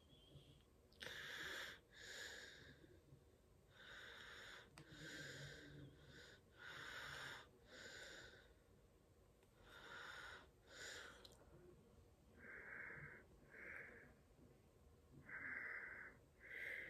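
A person breathing audibly through the mouth, faint and wheezy: paired in-and-out breaths, about one pair every three seconds.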